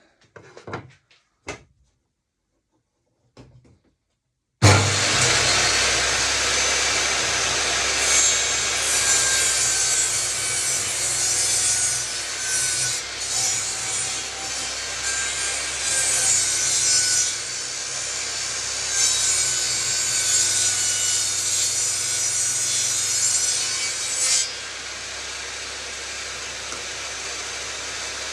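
A few light knocks, then an electric saw starts abruptly about five seconds in and cuts through wood for about twenty seconds, the pitch and level wavering as the blade works. Near the end the cutting stops and the saw runs on freely at a lower, steady level.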